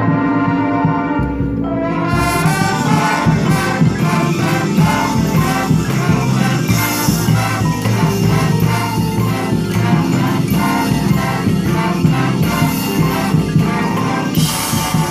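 High school marching band playing: brass chords with a drum line, the music turning busier and rhythmic about two seconds in.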